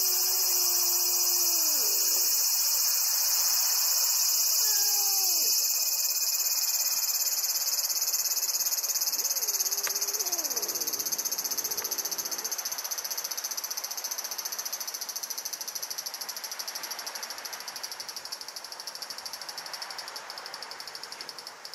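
Steady, high-pitched chorus of insects trilling, the loudest sound throughout; it grows fainter over the second half and breaks into separate pulses near the end.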